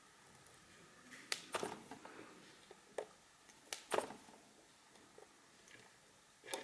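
A few small, sharp clicks and taps from handling tiny pin-header parts and tools on a wooden workbench. There are about five clicks in the middle and another cluster near the end, over faint room hiss.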